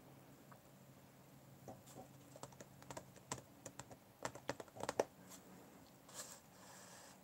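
Quick, light clicks and taps of a paintbrush against a plastic watercolour palette as paint is picked up, densest and loudest about four to five seconds in.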